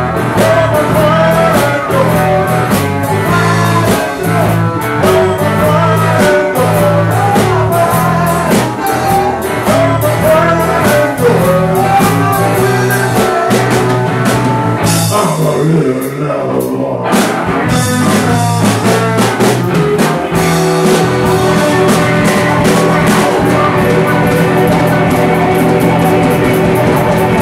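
Live blues band playing a blues shuffle on electric guitars, electric bass and drum kit. The drums and cymbals drop out for about two seconds midway, then the full band comes back in.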